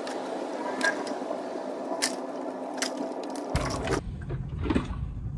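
Plastic clips of a 2022 Toyota Tundra's middle grille cracking free and the plastic grille parts creaking as the grille is worked off its surround, with a few sharp clicks about a second apart.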